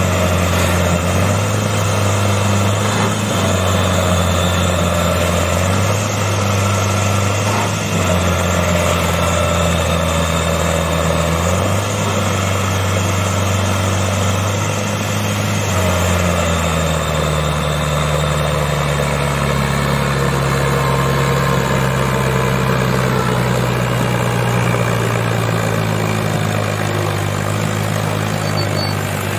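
Fiat 640 tractor's four-cylinder diesel engine labouring as it pulls a heavily loaded trailer. Its pitch steps up and down every couple of seconds, then drops lower about halfway through and holds there with a slow rise.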